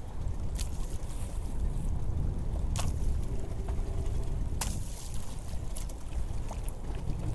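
Wind buffeting the microphone and sea water lapping at a small open boat's hull, with several sharp slaps of water, the loudest about three and four and a half seconds in.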